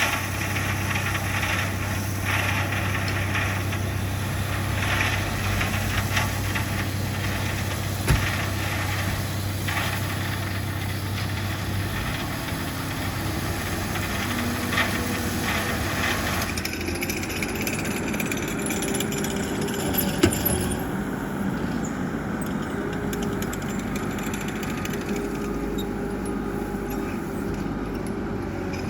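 Engine of heavy earthmoving machinery running steadily while working, with a couple of sharp clanks.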